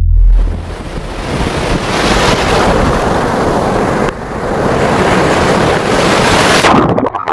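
Ocean surf breaking and foaming right at the microphone: a loud, steady rush of churning water that dips briefly about four seconds in and cuts off suddenly near the end.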